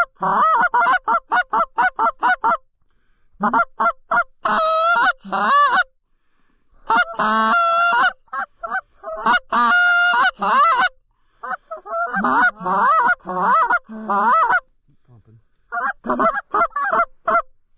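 Goose calls blown by hand in fast runs of honks and clucks, five runs with short pauses between, calling to Canada geese.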